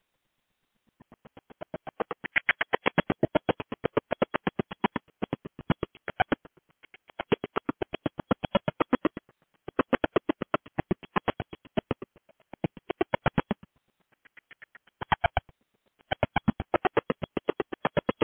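Glitching call audio: a fast, even buzzing pulse train of about ten clicks a second. It starts about a second in and cuts in and out in stretches of a few seconds. This is the sign of a faulty call connection.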